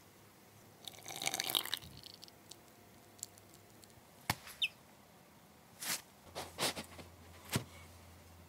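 Quiet close-up kitchen sounds: a brief scratchy rustle of dry flour being stirred in a glass bowl about a second in, then a handful of separate light taps and clicks.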